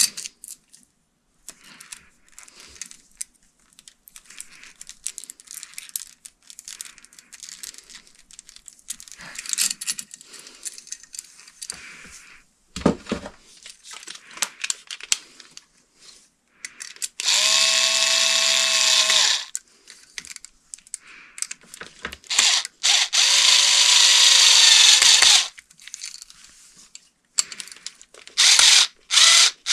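Cordless drill running in two bursts of about two and three seconds, its whine rising as the motor spins up, then two quick blips near the end. Quieter clicks and rustles of handling parts fill the gaps.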